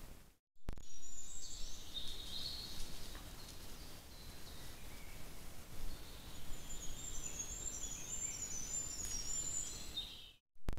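Songbirds singing over the steady hiss of a trail camera's microphone: high, thin warbled phrases early on, then a run of short, very high repeated notes in the second half. The sound drops out briefly just after the start and just before the end, where the footage cuts.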